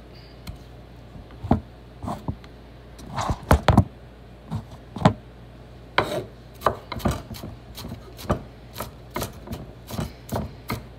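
Kitchen knife chopping onion on a wooden cutting board, the blade knocking against the board. The knocks are scattered at first, then settle into a steadier run of about two to three a second.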